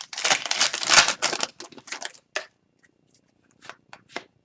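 Crinkling and rustling of Upper Deck hockey card pack wrappers and cards being handled, loudest in the first second and a half, then a few light clicks and taps.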